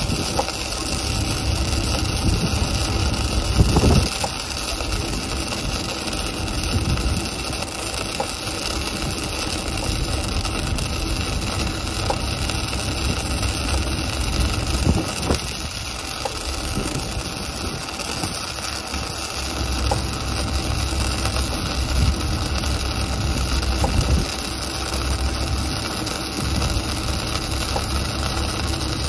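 Arc welding a vertical-down (3G downhill) seam on a steel tank wall: a continuous crackling, hissing arc over a steady low hum.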